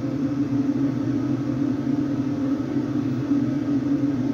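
A steady low machine hum, level and unchanging, like a motor or fan running.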